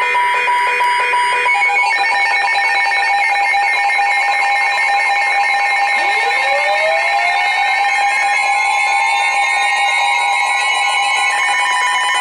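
Emergency Alert System attention signal: a loud, steady two-tone alarm that comes before a severe thunderstorm warning. From about six seconds in, a rising tone sweeps up alongside it.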